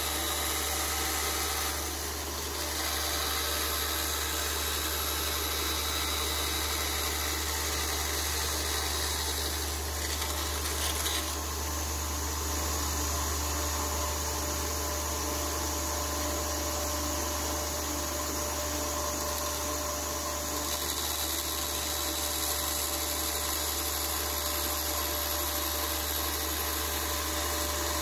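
Benchtop band saw running and cutting through a sheet of MDF: a steady motor hum with the blade's running noise.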